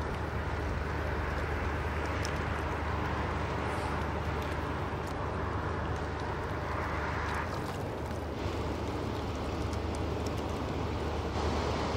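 Cargo ship Skarpoe passing close by: a steady low engine hum under the rush of water from its bow wave. The water rush fades about seven and a half seconds in.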